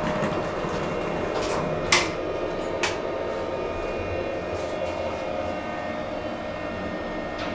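Otis 2000 lift doors closing, with a sharp knock about two seconds in and a lighter knock about a second later. A steady mechanical hum with faint whining tones runs underneath.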